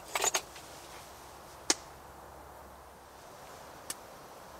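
Sharp metal clicks and taps from a Feuerhand hurricane lantern being handled just after lighting: a quick rattle of clicks at first, then one single sharp click, the loudest, and a fainter one near the end, over a low steady hiss.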